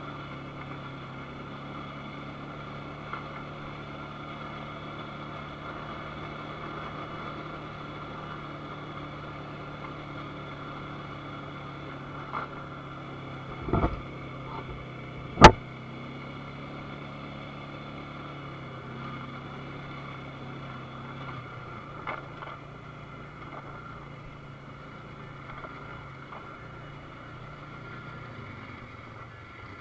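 ATV engine running at a steady note, with two sharp knocks about halfway through, the second the loudest. The low engine note fades somewhat about two-thirds of the way through.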